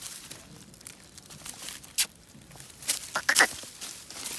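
Footsteps and rustling, with a sharp click about two seconds in and a short cluster of clicks and squeaky sounds around three seconds in.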